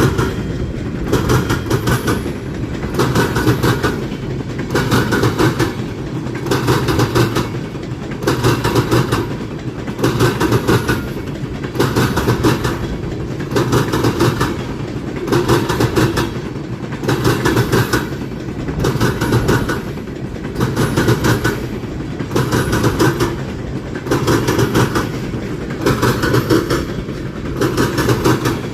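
Freight train cars rolling past at speed, their wheels clacking in a steady rhythm that swells about once every second and a half as each car goes by.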